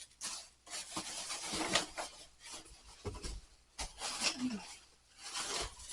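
Plastic lids and other household items being handled and rummaged through: irregular rustling and scraping, with a few light knocks a little past the middle.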